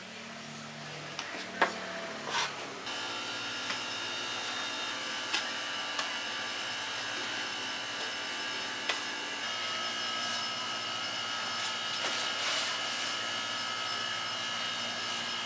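A steady electric motor hum with a whine that starts about three seconds in and runs on without change, with a few sharp knocks as hands work crumbly dough on a floured steel table.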